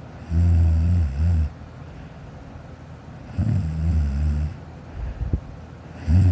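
A child snoring pretty loud in his sleep: three deep, buzzing snores about three seconds apart, each lasting about a second.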